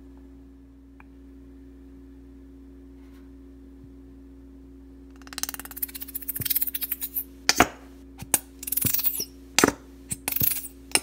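Plastic squeeze bottle of honey being squeezed over a saucepan: about five seconds in, a run of irregular crackly bursts from the flexing bottle and its valve begins, broken by a few sharp clicks.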